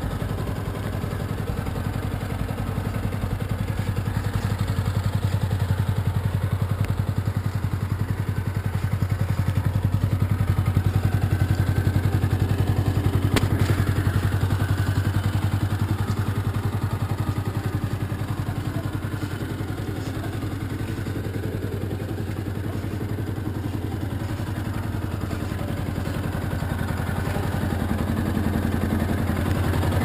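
Yamaha YZF-R125's 125 cc single-cylinder four-stroke engine idling steadily, louder midway and softer again. One sharp click about 13 seconds in.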